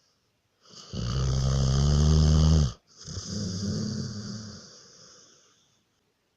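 Snoring: one loud, low, buzzing snore on the in-breath about a second in, then a softer out-breath that fades away.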